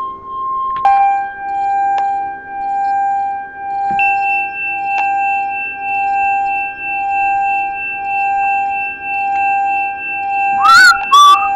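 SoundSchool Analog software synthesizer holding high sustained notes that stack into a chord as further keys come in, each entry marked by a faint click. The whole sound swells and fades slowly, a little more than once a second. Near the end a loud warbling slide in pitch breaks in.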